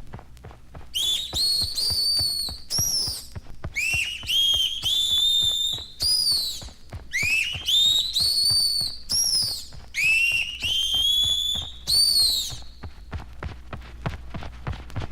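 High-pitched bat squeaks, a sound effect for a vampire bat. They come in four quick clusters of rising, whistle-like shrieks, over a steady patter of small clicks.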